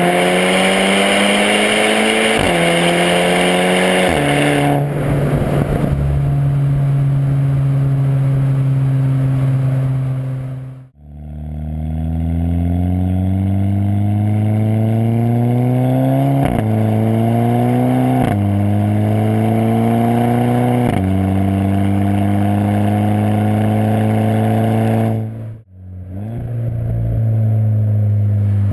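2010 Volkswagen Golf R (Mk6) with a full 3-inch CTS exhaust and Stage 1 tune, its turbocharged 2.0-litre four-cylinder accelerating hard through the gears: the engine note climbs, then drops sharply at each quick DSG upshift before settling into a steady cruise. This happens twice, with a short break between, and a third pull begins near the end.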